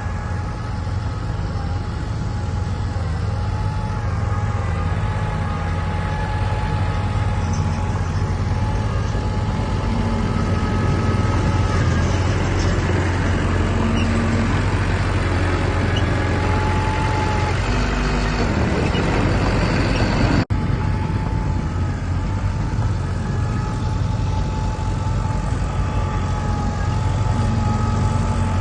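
Heavy diesel earthmoving machinery running steadily under load, a low engine drone with a steady whine over it. The sound cuts out for an instant about two-thirds of the way through.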